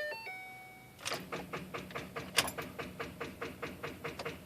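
A short electronic chime, then from about a second in a rapid run of clicks, about six or seven a second, from the Mustang's starter relay as the key is turned to start. The starter does not turn the engine over.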